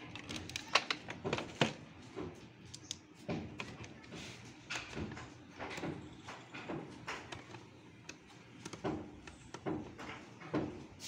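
Sharp plastic clicks and knocks, loudest in the first two seconds, as a precision screwdriver's plastic bit case is handled, then lighter repeated clicks as the screwdriver works a screw on the plastic end of an HP 12A toner cartridge.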